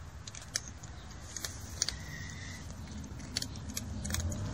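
Cat chewing dry kibble: a handful of sharp, irregular crunches and clicks, over a low steady background rumble.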